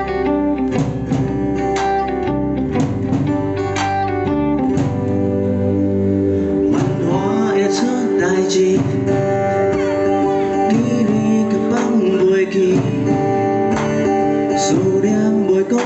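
Live band playing a song's instrumental opening: strummed acoustic guitar, electric guitar and drums. The deep bass drops away about six and a half seconds in, leaving mainly the guitars.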